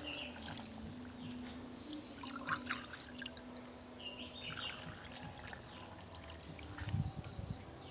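Milk being poured from a steel tumbler into a stainless steel mixer-grinder jar of peeled almonds: a faint trickle and splash of liquid on steel and nuts, with a soft knock about seven seconds in.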